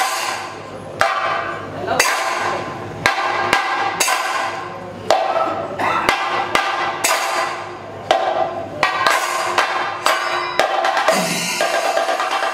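Chenda drums beaten with sticks in a thayambaka ensemble: sharp, ringing strokes come roughly once or twice a second, then break into a fast, continuous roll near the end.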